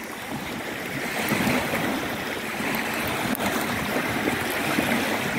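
Small waves lapping and washing over a pebble shore in a steady rush of water.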